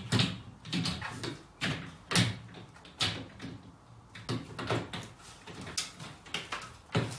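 Metal venetian blind being fitted: its slats rattle and the headrail knocks against the window frame in irregular sharp clacks and thumps, about every half second.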